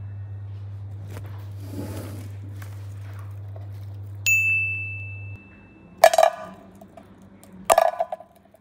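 A single bright ding about four seconds in, over a steady low hum that stops soon after. Then two sharp clacks of hard plastic toy capsules being set down on an artificial-grass mat, a little under two seconds apart.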